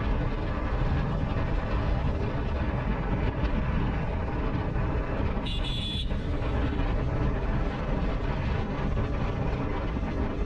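Riding sound of a Yamaha MT-15 motorcycle: a steady low rumble of wind on the microphone with the engine running beneath it. A brief high-pitched sound comes through about halfway.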